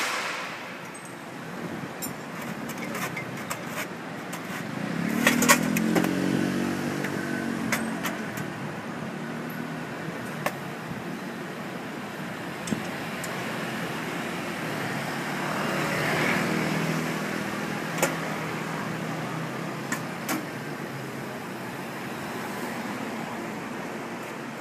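Street background with two motor vehicles passing, their engines swelling and fading a few seconds in and again around the middle. Steam from the puffed-rice cannon's blast dies away in the first second, and scattered sharp metal clanks come from the cannon and its basket being handled.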